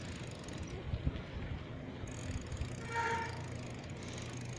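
Steady rushing sandstorm wind noise over a constant low hum, with a brief faint tone about three seconds in.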